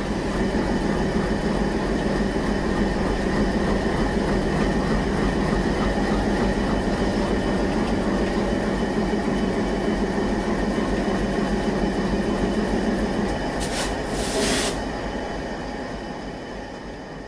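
A WDM3A diesel-electric locomotive's 16-cylinder ALCO 251 engine idling steadily while the locomotive stands still. A short burst of hiss comes about three quarters of the way through, and then the sound fades away.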